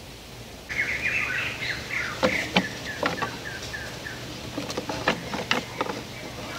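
A small bird chirping in a quick run of short notes for a few seconds from about a second in, over sharp clicks and knocks of thin bamboo sticks being handled and set into a lashed stick frame.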